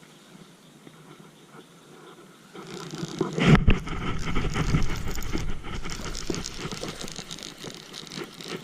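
Water splashing and rustling, most likely a bass thrashing at the surface as it is fought to a kayak. It starts about two and a half seconds in, with a sharp splash about a second later.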